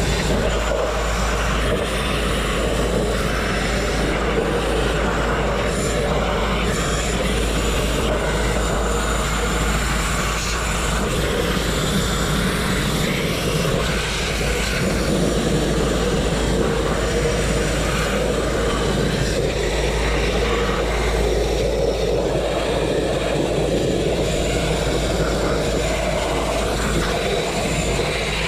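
Abrasive grit blasting: compressed air and grit jetting from a hand-held blast nozzle onto a truck frame's steel, stripping rust and paint to bare metal. A steady, loud hissing roar that runs without a break.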